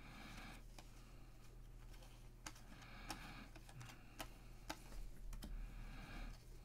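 Faint, irregular clicks and soft rustling of a stack of trading cards being flipped through by hand, card by card.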